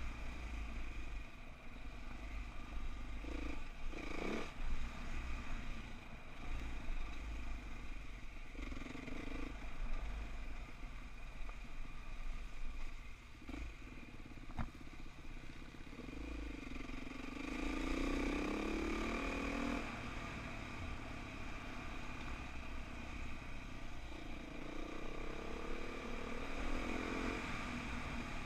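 Dirt bike engine running as it is ridden along a rough dirt trail, the revs climbing twice in the second half as it accelerates. A single sharp knock about halfway through.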